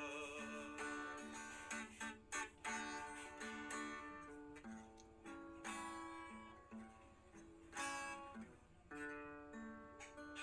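Quiet background music: a plucked guitar melody, note after note.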